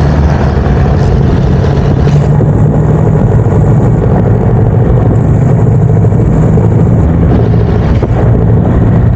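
Vehicle engines running in city traffic: a loud, steady drone with no let-up.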